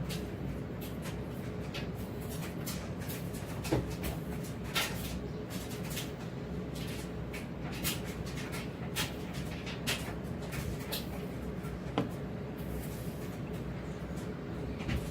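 Scattered light clicks and small knocks at an irregular pace, a few sharper ones standing out, over a steady low hum.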